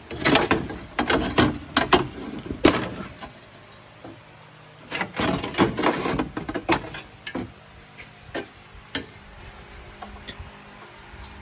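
Metal clanking and scraping as a cut section of a 1972 Corvette C3's rusty steel headlamp header bar is worked loose and pulled out from the fiberglass nose. It comes in two flurries of knocks, with a few single knocks after.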